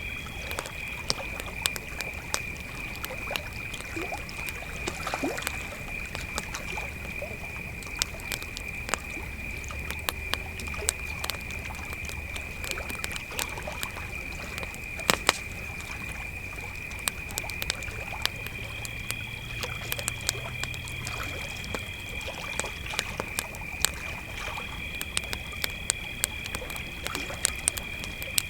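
Crickets trilling steadily in one high, unbroken note, with a second, higher cricket joining at times, over a campfire crackling with scattered sharp pops, one louder pop about halfway through.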